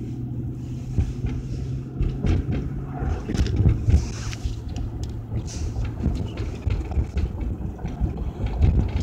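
Low rumble of a car's road and engine noise heard inside the cabin, with a steady low hum that fades about three seconds in, and scattered knocks and rubs from a handheld phone being moved about.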